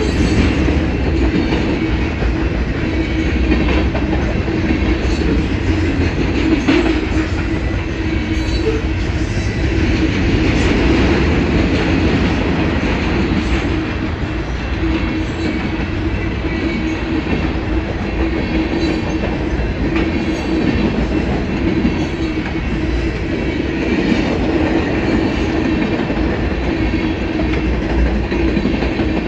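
Union Pacific freight train's loaded flatcars rolling steadily past: steel wheels clattering over the rail joints over a continuous rumble and a steady hum.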